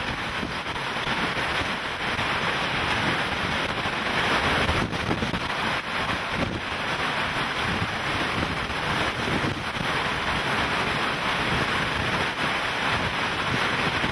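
Hurricane-force wind blowing steadily and gusting hard against the microphone, with driving rain.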